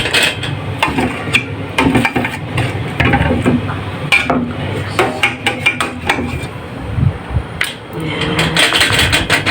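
Kitchen utensils knocking, tapping and scraping against a dish or baking tray in a string of sharp clatters, over a steady low hum.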